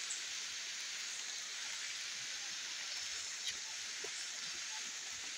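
Steady, even high hiss of the tropical forest at night beside a river, with a faint click about three and a half seconds in.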